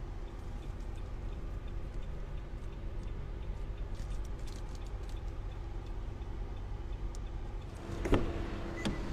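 Steady low hum of the parked SUV, with faint ticks, then a sharp clunk about eight seconds in as the Nissan Patrol's outside door handle is pulled and the door unlatches.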